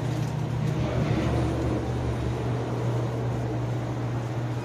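An engine running steadily: a constant low hum under a wash of noise, a little louder about a second in.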